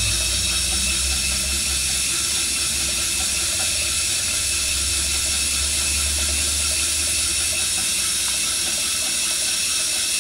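Steady hiss from a gas-fired 1-inch-scale Minnie live-steam traction engine with steam up, with a low rumble underneath that fades out about eight seconds in.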